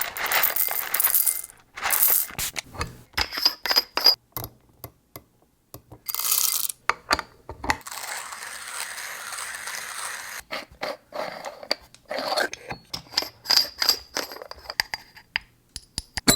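A run of coffee-making handling sounds: metallic clinks, taps and scrapes of a moka pot and its parts, with short bursts of rustling noise and about two seconds of steady rushing noise near the middle.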